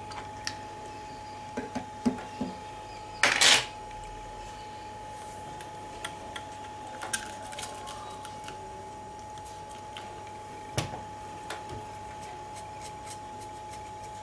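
Small clicks and taps of soldering tools being handled at a workbench during SMD chip soldering, with one louder, brief rustling burst about three seconds in and a run of light ticks near the end. Under it runs a steady electrical hum with a faint high whine.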